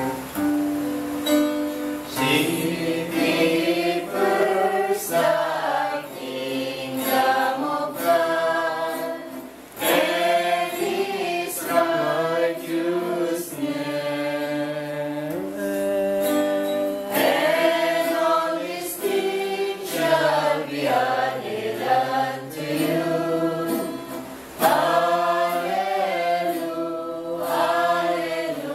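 A group of voices singing a Christian worship song together, accompanied by a strummed string instrument.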